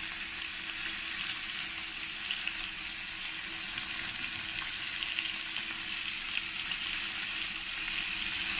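Tilapia pieces, heads and steaks, frying in hot oil in a kadai. The oil gives a steady sizzle with small crackles and spatters.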